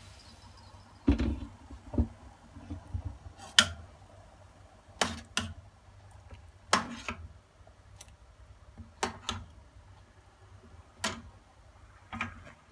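Metal slotted skimmer clinking against an enamel pot while skimming meat broth: about a dozen short, sharp clinks at uneven intervals.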